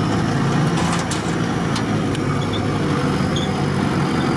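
Off-road 4x4 engines running steadily at low revs, with a few light clicks about one to two seconds in.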